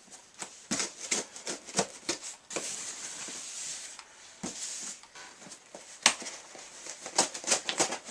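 A cardboard box being opened by hand: packing tape ripped and cardboard flaps handled, with scattered clicks and knocks and a rasping stretch a few seconds in.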